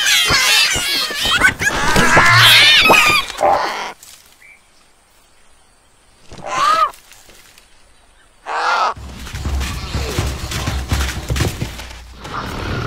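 Cartoon animal voice effects. A chorus of high, wavering squeals comes from the pig-like creatures in the nest for the first few seconds. Then come two short single cries a couple of seconds apart. From about nine seconds in there is a low rumbling with scattered knocks as the round animals roll over the ground.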